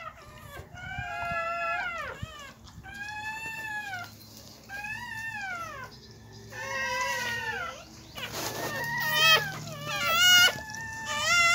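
Newborn Siberian husky puppy crying: a string of about eight high squealing cries, each rising then falling, roughly one a second, louder and shakier near the end.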